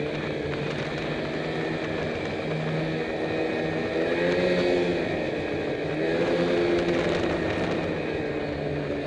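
Snowmobile engine running under way, heard from the rider's helmet. The revs rise and fall twice, about four and again about six seconds in, as the throttle is worked.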